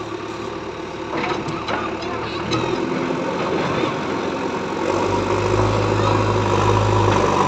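JCB backhoe loader's diesel engine running as the machine manoeuvres, getting louder and deeper from about five seconds in. A few sharp knocks come in the first three seconds.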